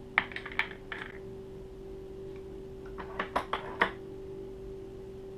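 Brass .44 Magnum cases and the reloading press clicking lightly as a case is taken from a plastic loading block and charged with powder from the press-mounted hopper: two short clusters of clicks about three seconds apart, over a steady hum.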